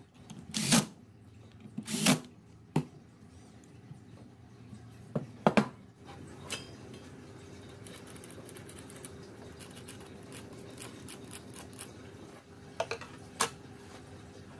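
A 12-volt cordless drill driving screws into wood in two short bursts, then sharp clicks and knocks of hand tools being handled, ending with a metal ruler being set down on a wooden saw table.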